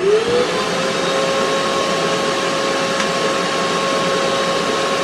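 Festool shop vacuum switching on suddenly and running steadily, together with a Carbide 3D 1.2 kW air-cooled VFD spindle. A hum rises in pitch over the first half second and then holds. The vacuum is started automatically by an iVac switch that senses current on the spindle's cable.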